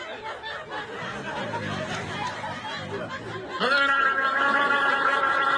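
A man snoring: a quieter, rougher stretch between breaths, then about three and a half seconds in a loud, long pitched snore that rises in pitch and then holds steady.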